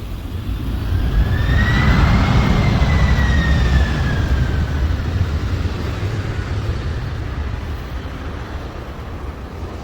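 Jet aircraft passing by: a loud low rumble swells and then slowly fades, with a turbine whine that rises slightly, falls away and dies out about halfway through.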